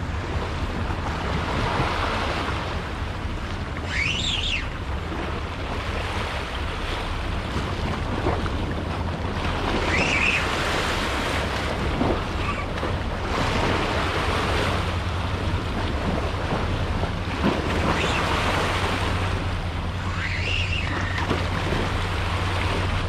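Small waves washing and breaking against a rock ledge, with wind buffeting the microphone; the wash swells up briefly a few times.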